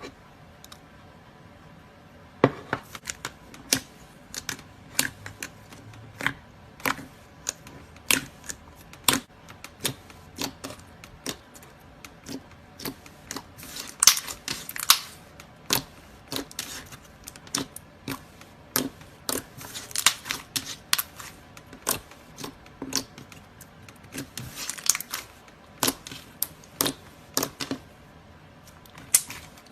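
Slime being handled and squished: irregular sticky clicks and pops, several a second, with short bursts of denser crackling. The clicking starts a couple of seconds in.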